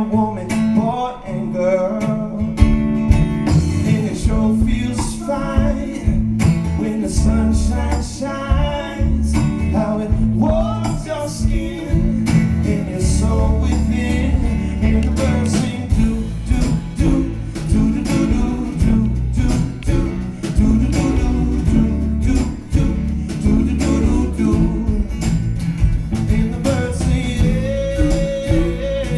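Live acoustic guitar music with singing from a pop-folk song, fuller and heavier in the low end from about two and a half seconds in.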